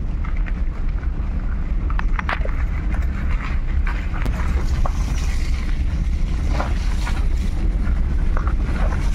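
Wind buffeting the microphone from a moving vehicle: a steady low rumble, with scattered light rattles and knocks from the ride over a rough road.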